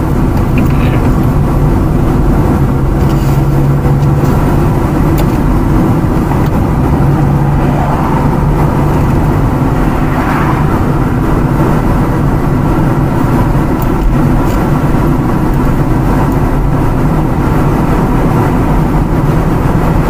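A car's engine and tyre noise heard from inside the cabin while driving: a steady low drone.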